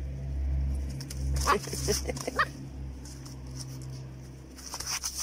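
A puppy gives a few short, high-pitched cries about one and a half to two and a half seconds in, over a low steady rumble.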